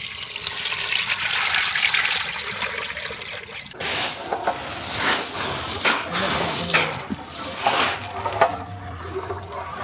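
Coconut oil poured in a thin stream into a large metal pot, a steady splashing hiss. About four seconds in, dried popcorn kernels tipped from a woven basket spill onto a metal tray with a sudden dense rattle that thins out toward the end.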